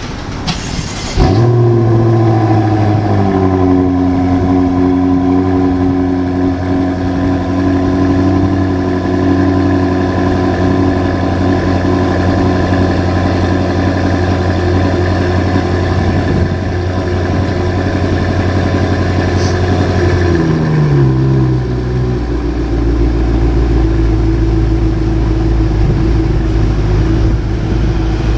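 Hamann BMW M6 with an Akrapovic exhaust starting up loudly: the engine flares about a second in, falls to a steady fast idle, then drops to a lower, deeper idle about two-thirds of the way through.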